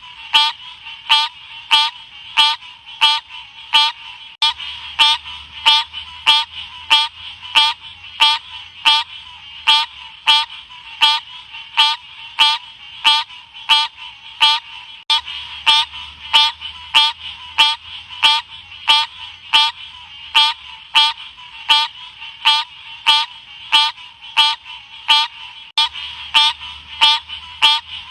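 Green odorous frog (Odorrana livida) calling: short, high chirping calls repeated evenly about twice a second without a break.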